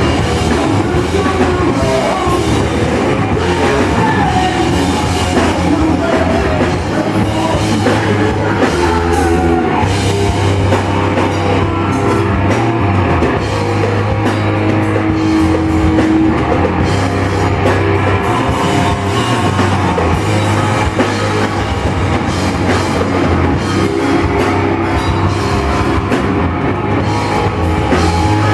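Loud rock music with a drum kit, playing steadily without a break.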